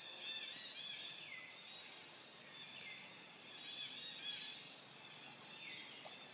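High-pitched animal calls, several overlapping and repeating, some sliding down in pitch, over a faint outdoor background.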